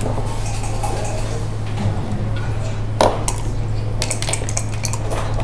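Backgammon checkers clicking against one another and the board as a player picks them up and sets them down. A single knock comes about three seconds in, then a quick run of clicks near the end. A steady low hum runs underneath.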